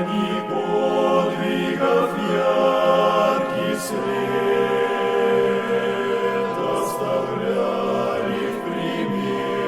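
Choir singing a slow hymn in long held chords, moving to a new chord every couple of seconds.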